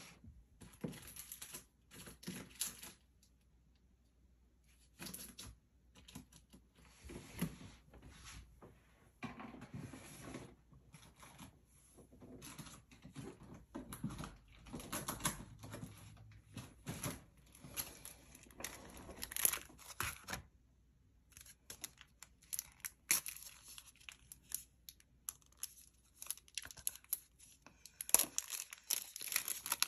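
Sticker sheets and a clear plastic zipper pouch rustling and crinkling in short, irregular bursts as they are handled, with a couple of brief pauses and louder rustling near the end.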